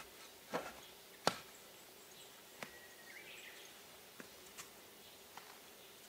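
A handful of light knocks and clicks at uneven intervals, the sharpest about a second in, over a faint steady background.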